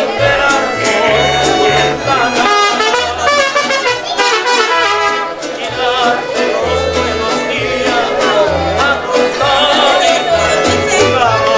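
Latin music with trumpets over a bass line of short held low notes.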